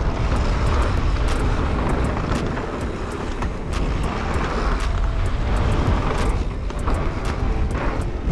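Wind rush buffeting the camera microphone over the roll of mountain-bike tyres on a gravelly dirt trail during a descent, with frequent sharp clicks and rattles from the bike and loose stones.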